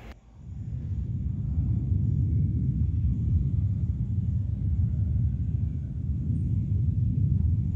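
A low, steady rumble that fades in over the first second or two.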